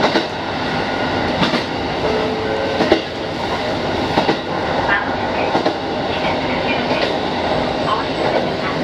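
Diesel railcar running along single track, heard from inside near the rear cab: a steady rumble of running noise with a wheel clack over the rail joints about every second and a half.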